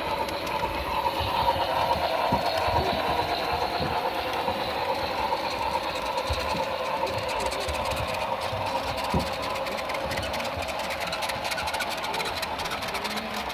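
Model passenger train running along the layout track: a steady mechanical running sound.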